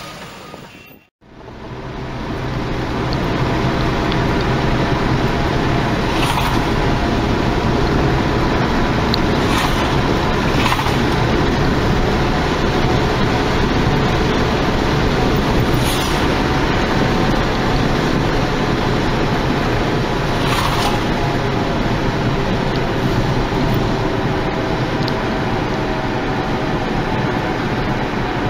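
Steady road and engine noise inside a moving car's cabin, starting after a brief gap about a second in, with a few short swishes as vehicles pass going the other way.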